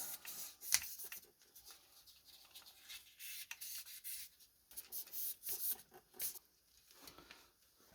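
Irregular hand rubbing strokes on a small metal typewriter part, scratchy and hissy, with a few light clicks and knocks as the part is handled.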